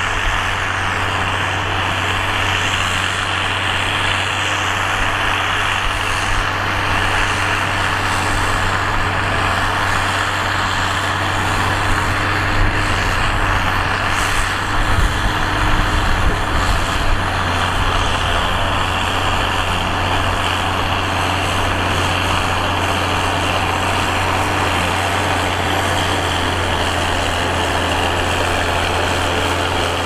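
Large John Deere tractor's diesel engine running steadily under load while pulling a plough through dry soil, a constant low drone with a noisy hiss above it.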